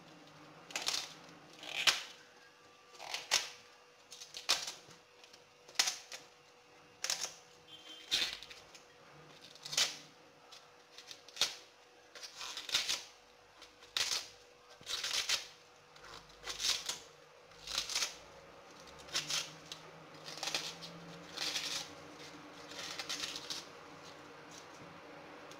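Tough outer leaves of a globe artichoke snapped off by hand one after another, a short crisp snap about every second, a few of them drawn out into a brief tearing sound.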